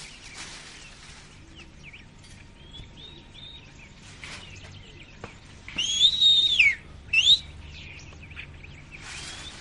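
Birds chirping with short, faint calls. About six seconds in comes a loud whistled call that rises, holds level and falls, followed by a short rising whistle.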